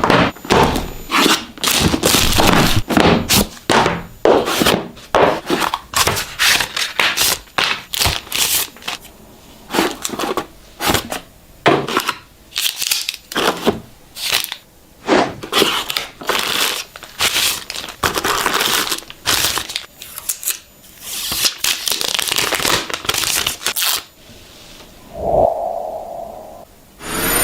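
Phone packaging being unboxed by hand: plastic wrap crinkling and tearing, cardboard rustling, and the box and its parts clicking and knocking, in quick irregular bursts. A brief hum sounds near the end.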